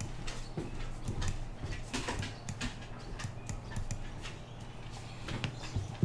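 Irregular clicking of computer controls, a mouse and keys, as the player steps along the road view, over a steady low hum. One louder, sharper click comes at the very end.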